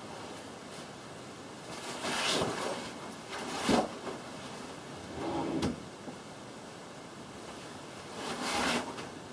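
Drawers of a chest of drawers sliding open and shut four times, one of them ending in a sharp knock a little under four seconds in, while clothes are being handled.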